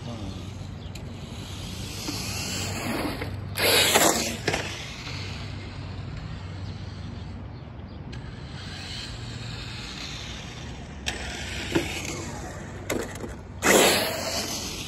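Brushless Traxxas TRX-4 radio-controlled crawler truck speeding past close by twice, about four seconds in and again near the end, each pass a brief loud rush of motor, drivetrain and tyre noise on concrete. A few sharp clicks and knocks come just before the second pass.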